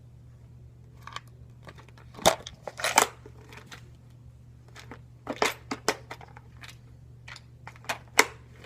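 Plastic tackle boxes being handled and set down: scattered sharp clacks and rattles, the loudest a couple of seconds in and again near the end, over a steady low hum.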